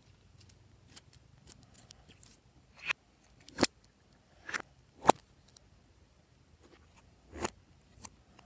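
A series of sharp clicks at irregular intervals, about six of them, the loudest a little past halfway.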